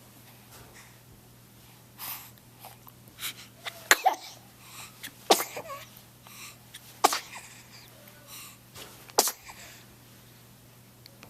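A little girl sneezing again and again, four sharp sneezes about one and a half to two seconds apart after a couple of softer sounds. It is a photic sneeze reflex, set off by bright sunlight.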